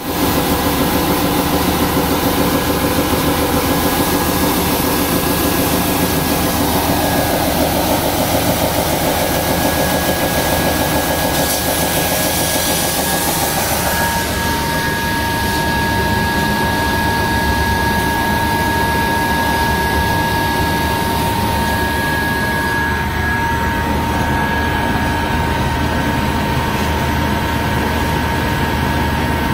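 Jonsen SGP1000 deburring machine running: a loud, steady machine noise with a constant high whine, joined about halfway through by a second, lower whine.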